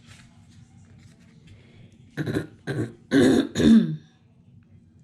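A woman clearing her throat and coughing: four short bursts starting about two seconds in, the last two loudest. She has a sinus infection.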